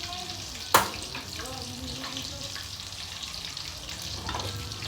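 Breaded chicken frying in hot oil, a steady sizzle, with one sharp clack of a utensil against the pan about a second in.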